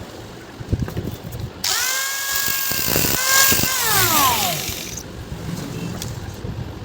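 Handheld power cutting machine starting up and cutting into seized screw heads to slot them, with a hiss and a steady whine; after a couple of seconds it is switched off and the whine falls away as the disc spins down.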